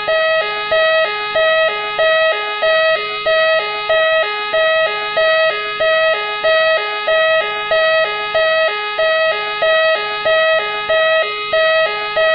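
Machine X police car siren sounding continuously: two notes alternating high and low, with about three high notes every two seconds, over a steady higher tone and a quick up-and-down warble.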